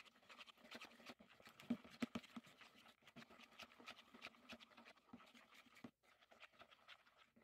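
Metal spoon stirring a dry, stiff mix of powdered sugar and maple syrup in a plastic bowl: a rapid run of faint scrapes and clicks against the bowl.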